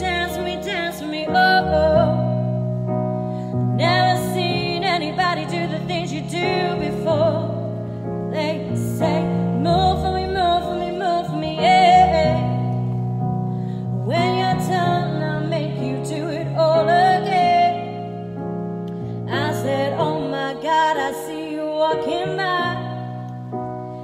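A woman singing a pop cover into a handheld microphone over a piano backing track, with held notes and vocal runs.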